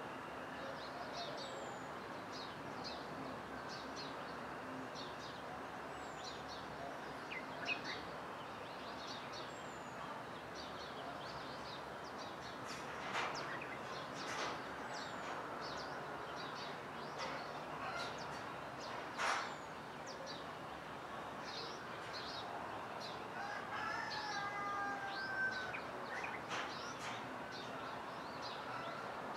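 Dawn chorus of many small birds chirping over a steady outdoor hiss. A few sharper, louder calls stand out, and a longer pitched call comes about five seconds before the end.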